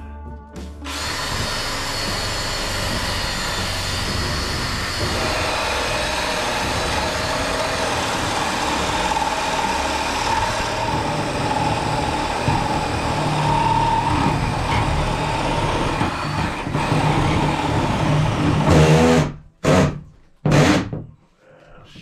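Cordless drill boring a hole through wooden framing, running steadily under load for most of the time, then a few short trigger bursts near the end before it stops.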